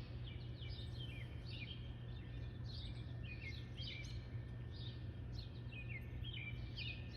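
Several small birds chirping over and over, each chirp a short note falling in pitch, over a steady low hum.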